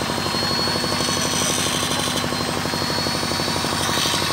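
Kobelco excavator's diesel engine running steadily with a fast, even pulsing beat, and a thin high whine above it.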